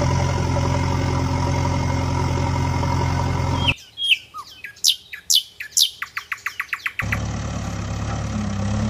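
A steady engine drone stops abruptly a few seconds in. For about three seconds a bird chirps: several falling whistled notes, then a quick trill of about seven short notes a second. The engine drone then starts again just as abruptly.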